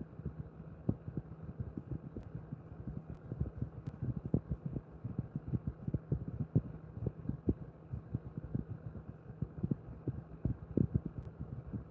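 Rapid, irregular soft thumps of hands patting and tapping a dog's back and shoulders in a massage, several a second, over a faint steady hum.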